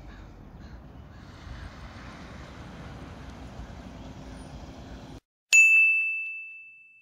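Steady outdoor background noise that cuts out about five seconds in, followed by a single loud, bright ding sound effect that rings and fades away over about a second and a half.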